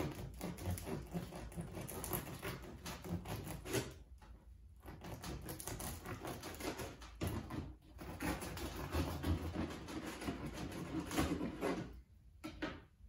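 A knife sawing back and forth through the crisp, crackling crust of a rustic loaf. The crust gives a fast crunchy rasp in three long stretches, with brief pauses about four and eight seconds in, and it dies down near the end.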